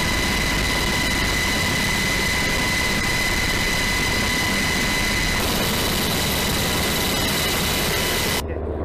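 Military helicopter heard from inside the cabin: a loud, steady engine and rotor roar with a high turbine whine. It cuts off abruptly near the end, giving way to a much quieter scene.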